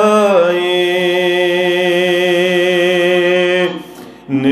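A man singing a devotional verse in Kashmiri, holding one long steady note on the word 'bewafaee' for about three seconds, then breaking off for a breath near the end.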